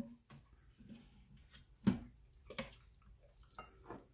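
Plastic ladle scooping thick chili in a stainless steel pressure-cooker pot: a handful of short knocks and scrapes against the metal, the sharpest about two seconds in, with wet slopping of the stew.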